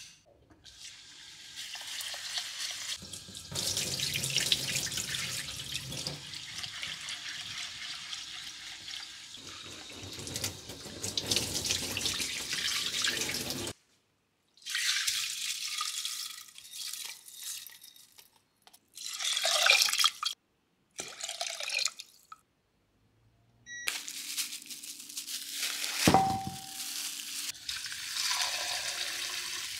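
Kitchen tap water running into a stainless steel sink and splashing in a glass bowl as grains are rinsed, then stopping. After a stretch of short, broken handling noises, the tap runs again over raw chicken in a glass bowl, with one sharp clink late on.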